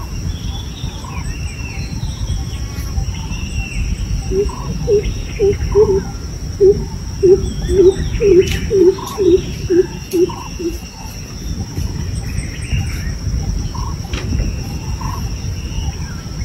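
Wild scrub-forest ambience: a steady high insect drone with scattered bird chirps over a steady low rumble. In the middle comes a run of about a dozen loud, low hoots, about two a second, which are the loudest sounds.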